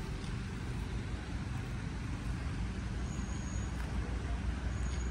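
A motor vehicle's engine running with a steady low rumble. A faint high-pitched tone comes in twice in the second half.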